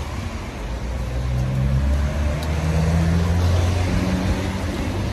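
A road vehicle's engine running as it passes close by, its low hum growing louder over about three seconds and then easing off, with road noise underneath.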